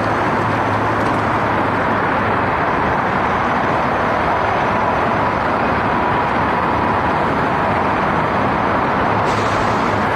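Steady, loud vehicle engine and road traffic noise with a faint steady tone, and a short hiss about nine seconds in.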